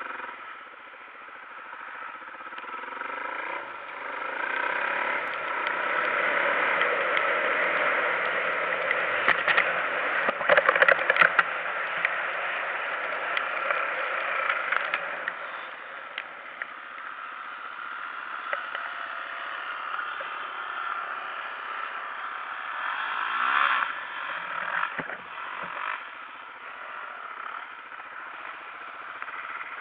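Off-road motorcycle engine running as the bike rides along, its pitch rising and falling with the throttle. A spell of clattering knocks about nine to twelve seconds in.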